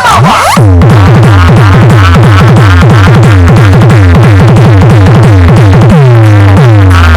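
Electronic dance music played very loud, built on heavy bass kicks that drop in pitch. After a short break, a fast roll of kicks runs, about five a second, then slows to about two a second near the end.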